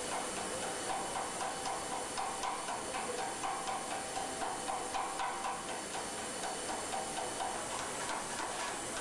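Servo-hydraulic road simulation test rig running with a Mercedes-Benz M-Class suspension corner mounted: a steady hiss with a faint whine, its loudness pulsing unevenly about twice a second.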